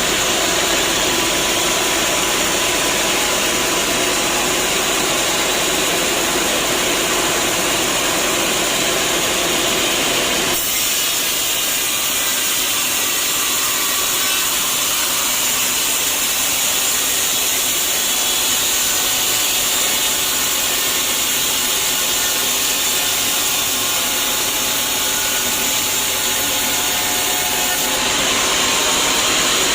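Sawmill saw running and cutting through a log, a steady machine noise. About ten seconds in the deep low end drops away abruptly, and it comes back near the end.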